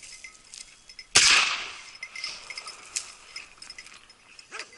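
A single shotgun shot about a second in, loud and sudden, with a short echoing tail, fired at a wild boar. Light metallic clinking comes and goes around it.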